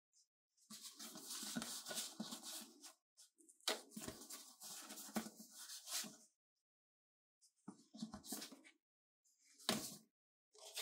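Thick printed postcards being handled: picked up, slid against each other and laid down on paper calendars, in several bursts of paper rustling and scraping with a few sharp taps.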